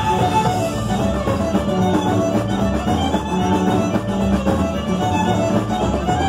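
A tierra caliente regional band playing a fast zapateado: violin carrying the melody over accordion, bass and quinto guitar, with a steady dance beat.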